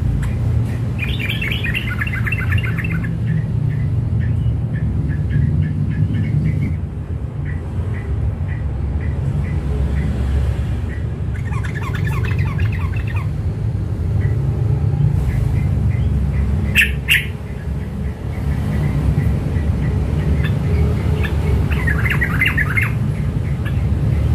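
Caged yellow-vented bulbul giving four short bursts of rapid chattering song, a newly caught bird practising its song. A steady low rumble runs underneath.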